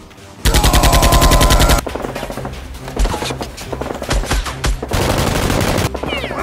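Machine-gun fire sound effect: a loud, fast burst starting about half a second in and lasting just over a second, then quieter, scattered shots over background music.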